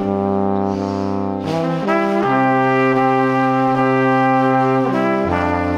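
Background music of long held chords in a brass-like timbre, changing chord a few times.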